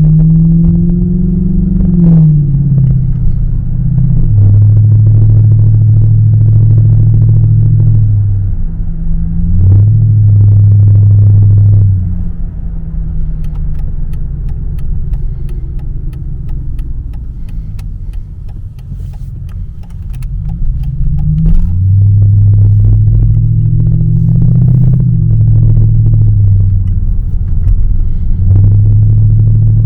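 Mercedes W220's V8 exhaust under way, pulling with the pitch climbing and dropping back several times as it goes through the gears. About twelve seconds in it goes quieter for a stretch, then returns loud around twenty-one seconds and keeps pulling.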